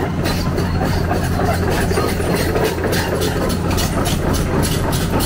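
Heavy diesel engine of construction machinery running steadily. From about halfway in, a rapid series of clicks, about four a second, runs over it.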